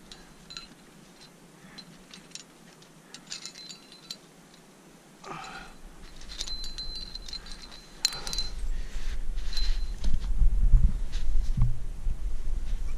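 Metal climbing gear, carabiners and a cam, clinking and jingling in scattered light clicks as it is moved along a granite crack. From about eight seconds in, a low rumbling noise grows louder.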